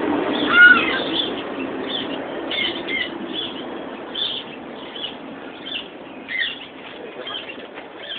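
Short, high-pitched chirps and squeaks from small animals, repeated about once a second. The loudest comes about half a second in. A steady low hum runs underneath.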